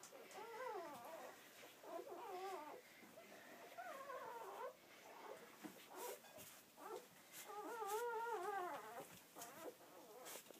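Newborn Labradoodle puppies whimpering and squeaking while nursing: a series of faint, wavering high-pitched cries, the longest and loudest about three-quarters of the way through.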